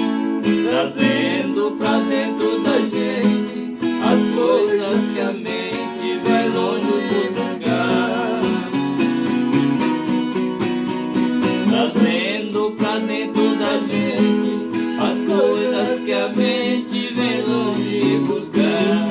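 Instrumental passage of Brazilian caipira music led by a plucked viola caipira, with quick picked notes over sustained low tones.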